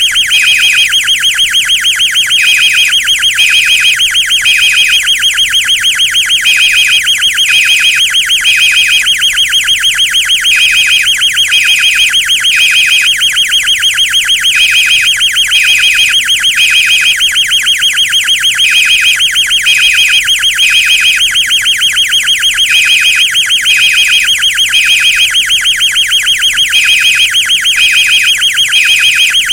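Fire alarm horns sounding together in a mixed pattern: a continuous buzzing horn, with brighter beeps in groups of three over it, each group repeating about every four seconds, the temporal-3 evacuation pattern.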